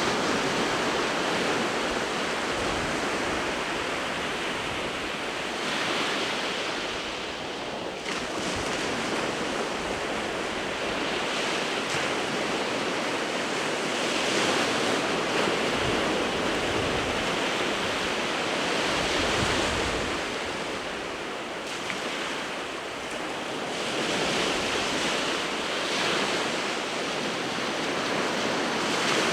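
Sea waves breaking and washing on the shore in a continuous wash of surf, swelling and easing every few seconds.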